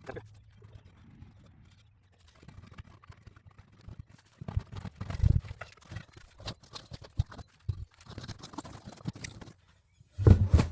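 Irregular scraping, rustling and knocks from handling a tractor tire and its inner tube, with a loud thump near the end.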